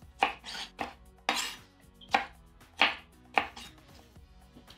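Chef's knife slicing bell peppers into matchstick strips on a wooden cutting board: about seven separate cuts, irregularly spaced, each ending in a knock of the blade on the board, in the first three and a half seconds.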